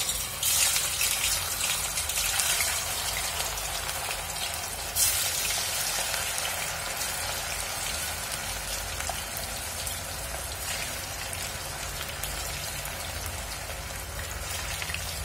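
Batter-coated cauliflower florets deep-frying in hot oil: a steady, dense crackling sizzle as the oil bubbles around the pieces.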